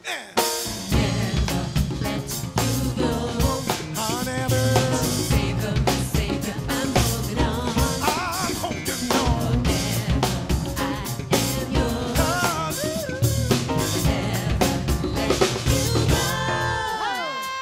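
Live gospel band playing, with the drum kit to the fore and voices singing over it. The band comes back in after a brief break right at the start.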